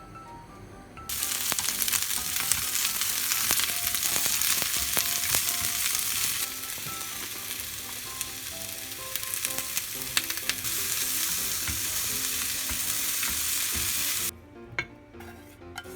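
Food sizzling in hot oil in a frying pan, starting suddenly about a second in as it goes into the pan, crackling throughout, and stopping abruptly near the end.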